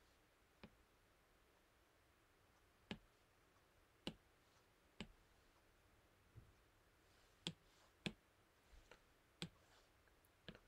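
Stylus tip tapping and clicking on a tablet's glass screen while handwriting: about ten short, sharp clicks spaced irregularly, over near silence.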